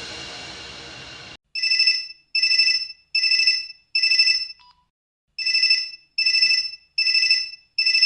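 Mobile phone ringtone imitating an old telephone bell: short, bright electronic rings in two groups of four, with a pause between the groups. Before it, in the first second or so, another sound fades away and stops.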